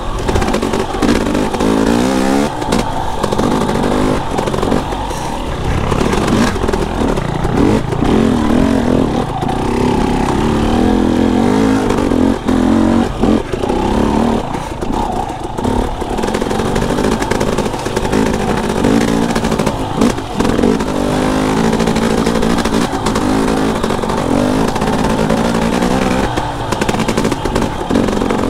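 KTM enduro dirt bike engine running on single track, its revs rising and falling over and over as the rider works the throttle, with scattered knocks and clatter from the bike over the bumpy trail.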